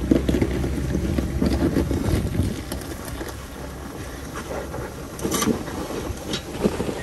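Jeep Wrangler engine running at low crawling revs as it climbs a rocky ledge, a low rumble that eases off about two and a half seconds in. Wind buffets the microphone, and scattered sharp clicks and crunches come through, loudest a little past the five-second mark.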